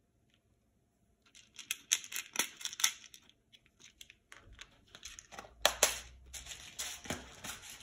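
Small plastic clicks and rattles as plush safety eyes are picked out of a clear plastic compartment box, with rustling handling noise. It starts after a second or so of quiet, with a run of clicks, then a pause and a second, busier run of clicks and rustles.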